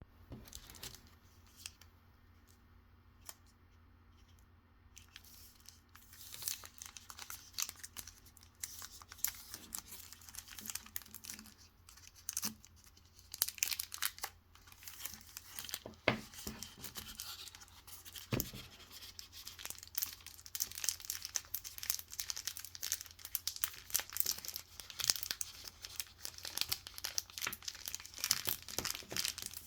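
Chocolate bar wrapper crinkling and tearing as it is opened by hand. After a quiet start, a dense run of crackles begins about five seconds in, with a few sharper snaps.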